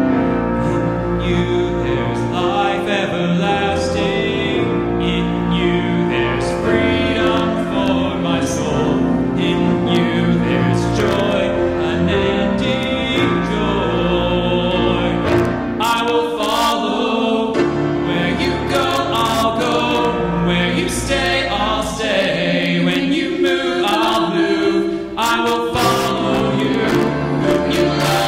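Contemporary worship music: a band playing while voices sing a worship song.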